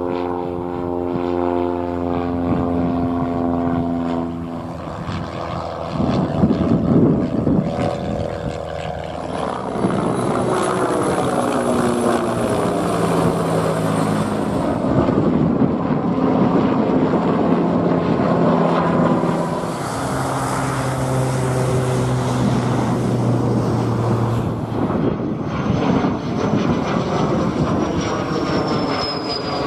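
Aircraft passing overhead one after another. Propeller engines drone with their pitch sliding down as each goes by, and near the end a high whine falls in pitch.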